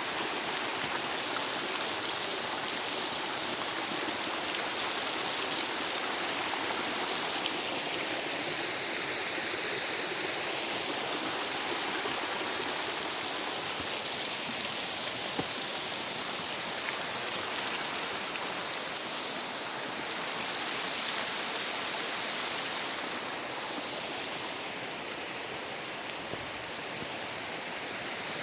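Waterfall and mountain stream rushing steadily, a constant hiss of falling and flowing water that eases slightly near the end.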